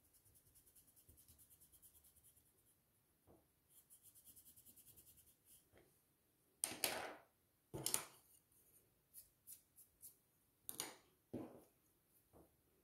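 Faint, quick back-and-forth rubbing of an eraser pencil on paper, about eight strokes a second, in two short runs. This is followed by several sharp clicks and knocks of pencils being put down and picked up on a wooden table.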